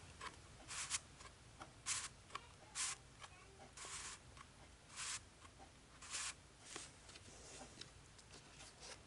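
Faint, short cardboard scrapes, about one a second, as the turning wheel of an interactive board book is worked by hand to move the printed stirring spoon.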